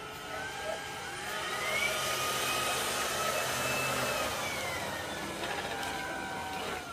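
LG robot vacuum's suction fan running, with a whine that rises about a second in, holds, then falls away, before the noise drops off near the end.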